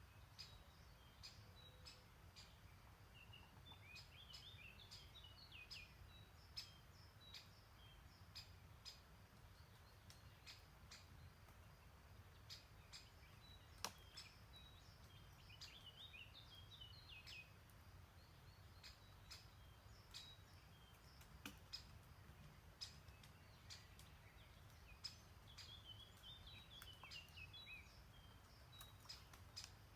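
Faint songbird singing a short, jumbled, falling phrase three times, about every ten seconds, over a low steady background murmur, with scattered soft clicks throughout.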